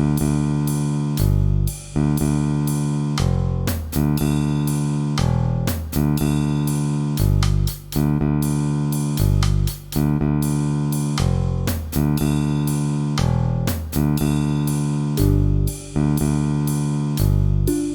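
Instrumental music with a steady rhythm of plucked notes over a bass line.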